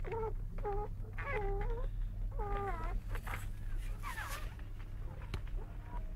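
Newborn puppies whimpering and squeaking while they nurse: short, high, wavering mewling cries, several in quick succession in the first half, thinning out near the end.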